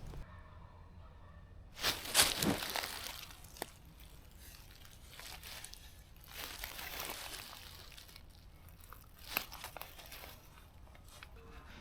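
Rustling and crunching in a few short bursts, the loudest about two seconds in, with a sharp crackle near the end.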